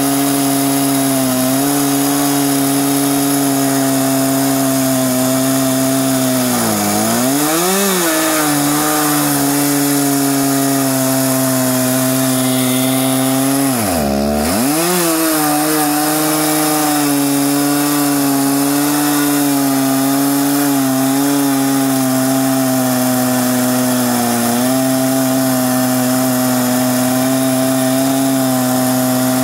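Chainsaw running at full throttle in an Alaskan chainsaw mill, ripping along a log. Its pitch dips sharply and recovers twice, about seven and fourteen seconds in.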